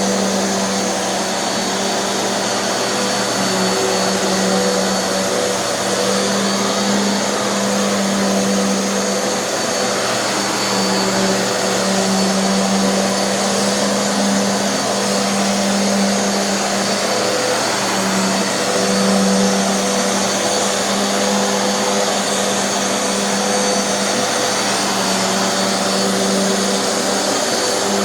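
Hoover NanoLite vacuum cleaner running steadily, its motor hum wavering slightly in pitch, while vacuuming with a brushroll whose idler pulley has been fixed in place with low-temperature hot glue.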